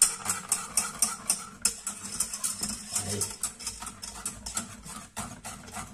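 Utensil stirring a milk and cornstarch cream in a saucepan: a quick, irregular run of small clicks and scrapes against the pan.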